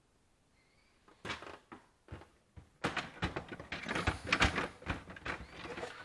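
Plastic freezer drawers and bins of a KitchenAid refrigerator being handled: scattered clicks and knocks starting about a second in, then a busy run of rattling and knocking.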